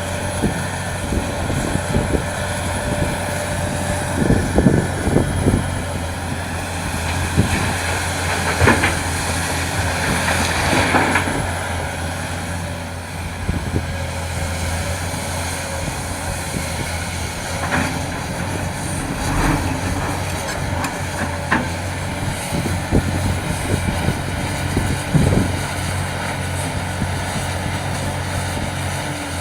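Heavy earthmoving machinery running: a steady, low diesel engine drone with scattered knocks and clanks.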